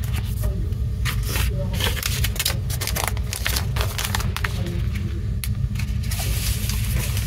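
A clear plastic sleeve crinkling and paper inserts rustling as they are handled, in a run of sharp crackles and scrapes that grows denser near the end. A steady low hum runs underneath.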